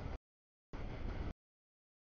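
Double-stack freight train passing over a grade crossing: steady rumble and wheel noise, heard in two short chunks with dead silence between as the audio drops out.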